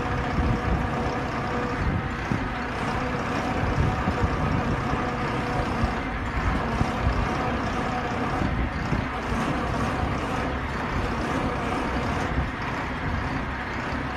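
Truck-mounted drilling rig's diesel engine running steadily, easing off slightly near the end.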